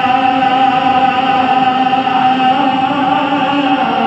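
Man's voice chanting a naat, holding one long note on a drawn-out syllable without a break, the melody bending in the last second or so.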